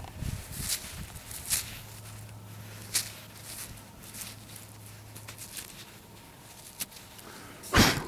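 Soft rustling and scattered clicks of hands working soil at a freshly dug hole, with a faint low hum for a few seconds in the middle and one loud thump near the end.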